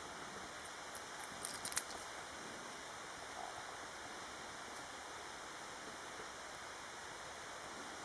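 Steady hiss of outdoor background noise, with a short rattle of sharp clicks about a second and a half in as a dog moves about in the snow.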